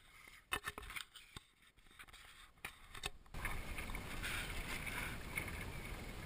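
A few scattered clicks and knocks of sailing gear being handled, then, after a cut about three seconds in, the steady rush of wind and water around a 470 sailing dinghy under way, with wind on the camera microphone.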